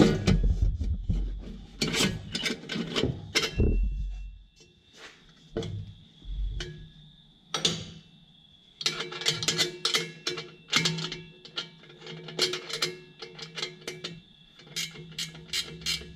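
Metal clinks and clicks of a V-band clamp being fitted and snugged around a turbocharger's exhaust outlet flange, thick in the first few seconds and again from about halfway on. Background music plays under it.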